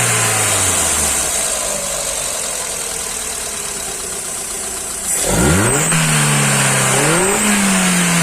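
Hyundai i10 engine running on CNG. It settles from a rev to a low, steady idle, then is revved sharply about five seconds in and again about two seconds later, easing back down each time. It fires smoothly, the number-one cylinder misfire cured by a new spark plug and cord wire.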